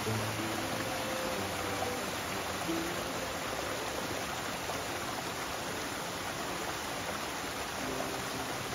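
A small mountain creek cascading over boulders: a steady, even rush of water. Faint background music sits underneath.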